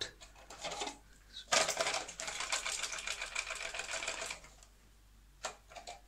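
Rapid run of small rattling clicks and scrapes from fingers rubbing over a toilet's plastic flush valve while cleaning it, lasting about three seconds from about a second and a half in, with a few lighter clicks before and after.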